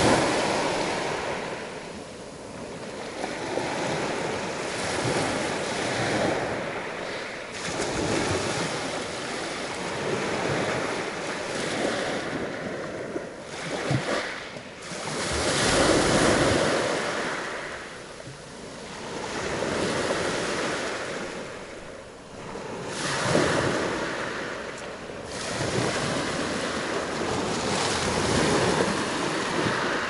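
Black Sea waves breaking on the beach, each surge swelling and fading away every few seconds.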